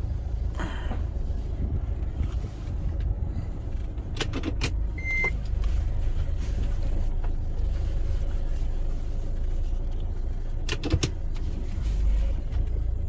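Car engine running at low speed while the car is manoeuvred into a parking space, heard from inside the cabin as a steady low rumble. There are a few sharp clicks about four seconds in and again near eleven seconds, and one short beep just after five seconds.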